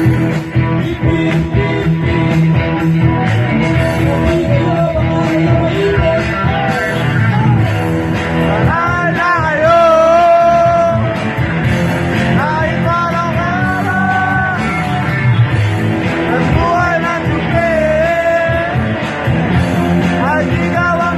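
Rock band playing a rock-and-roll song with a lead voice singing over it. The sung lines stand out most clearly from about eight seconds in.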